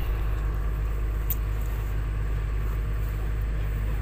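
Excavator's diesel engine running steadily, heard from inside the operator's cab as an even low hum, with one faint click about a second in.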